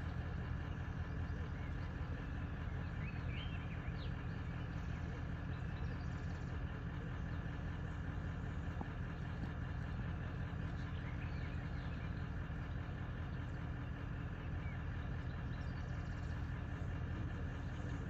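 Vehicle engine idling steadily: a low, even hum, with a few faint short chirps above it.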